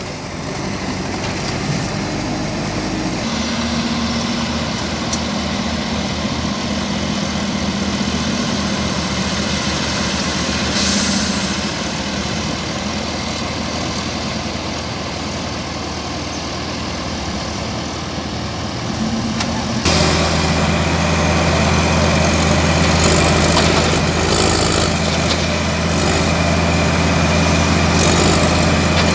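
Diesel engine of a Caterpillar 950 wheel loader with a log grapple running as it works; the engine note steps up about three seconds in and gets louder again about twenty seconds in as it works harder. A brief hiss about eleven seconds in.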